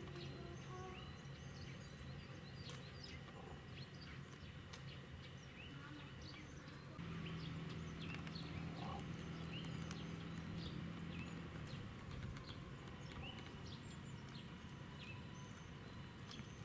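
Outdoor ambience: a low steady hum with scattered short, high chirps, and a louder low drone from about seven to eleven seconds in.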